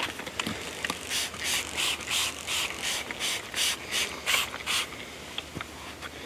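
A hand spray bottle of scent-killer spray being squeezed over and over: about ten quick hissing sprays, two or three a second, stopping a little before the end. The spray is going onto camo clothing.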